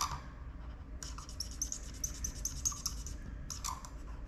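Scribbling on paper with a pen: quick back-and-forth strokes colouring in a square on a savings-challenge sheet, starting about a second in and going for a couple of seconds, with a few more strokes near the end.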